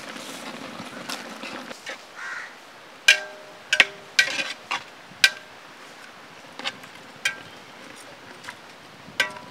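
Metal ladle stirring a large aluminium cooking pot, knocking against its sides in a string of sharp clanks, each with a short metallic ring; most of the clanks come in the middle, with one more near the end.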